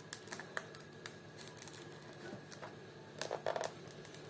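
Small hand-handling clicks and taps from a new 2025 button-cell battery in its hard plastic packaging, faint and scattered, with a short run of louder clicks a little after three seconds in.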